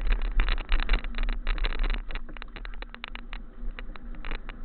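A mountain bike rolling downhill over a rough trail, with dense irregular rattling and knocking and a strong uneven wind rumble on the microphone.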